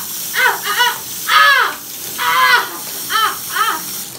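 A high, squawking puppet voice making about six short calls that rise and fall in pitch, some in quick pairs and two drawn out longer, over the steady hiss of a sink faucet running, which cuts off near the end.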